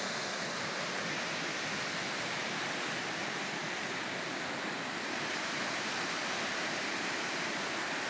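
Waterfall and river rushing with a steady, even noise of falling water.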